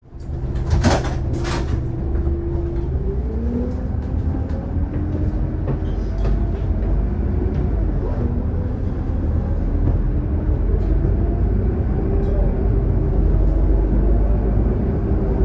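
Scania K280UD double-decker bus under way, heard from the front of the lower deck: a steady low engine rumble with a whine that rises in pitch several times and drops back between rises. Two sharp knocks about a second in.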